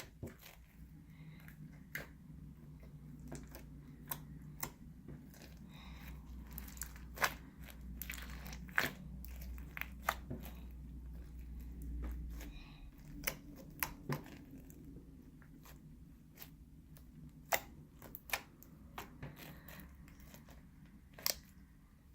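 Crunchy slime with foam beads being squished by hand, giving irregular crackling pops and clicks.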